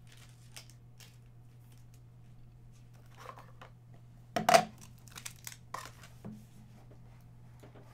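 Hands handling trading-card packaging and a cardboard card box: light rustling and crinkling with scattered small clicks, one loud sudden noise about halfway through, then a few smaller sharp ones.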